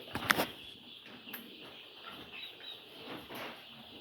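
A flock of two-week-old layer chicks cheeping, with a sharp click about a third of a second in.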